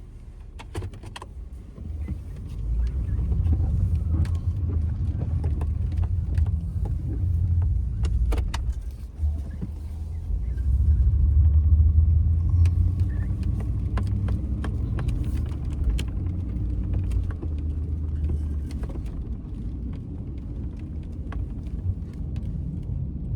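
Pickup truck engine running as the truck drives and turns around in deep snow: a low rumble that builds after a couple of seconds, dips briefly, then is loudest about halfway through, with scattered clicks and rattles.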